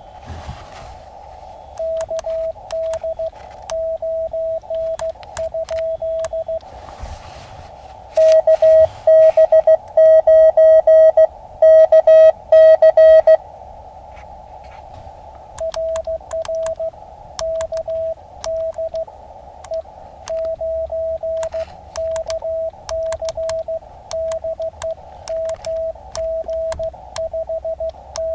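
Morse code (CW) from an Elecraft KX2 transceiver: a single beeping tone keyed on and off in dits and dahs, over a steady band of receiver hiss. In the middle a louder, harsher run of code plays for about five seconds. After that the code goes on at the earlier level.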